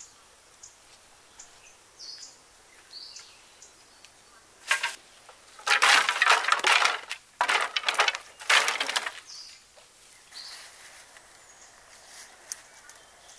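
Dry twigs being snapped and crushed: four loud crackling, crunching bursts, the longest lasting over a second, starting a little under five seconds in and ending about nine seconds in.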